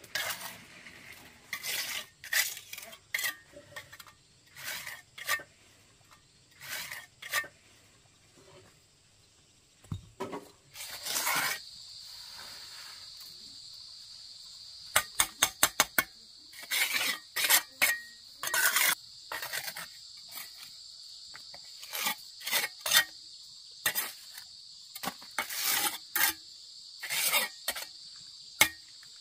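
Steel bricklaying trowel scraping and clinking on bricks and wet mortar in short irregular strokes as bricks are laid, with a quick run of taps about fifteen seconds in. From about eleven seconds in, a steady high insect drone runs underneath.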